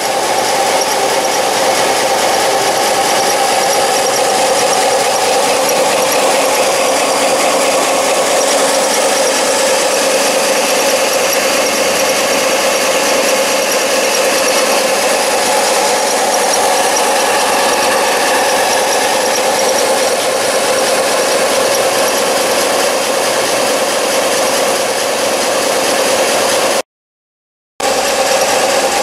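Axminster belt sander running, its abrasive belt driven through pulleys and a V-belt by a 1/2 HP Brook Crompton motor, with a steady loud whine. There is a short break near the end.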